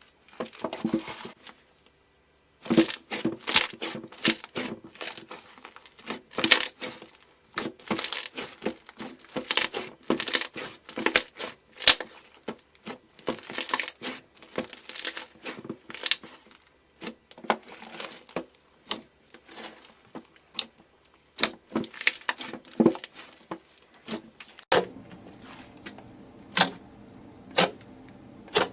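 Crunchy things being crushed by hand: dense crackling and crunching in quick irregular runs, with a brief pause about two seconds in. Near the end it changes to sparser single snaps over a low steady hum.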